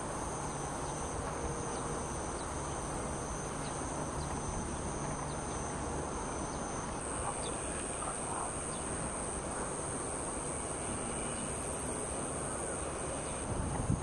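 Field ambience dominated by insects calling steadily, with two continuous high-pitched tones over an even hiss and a few faint, short high chirps. A low rumble comes in just before the end.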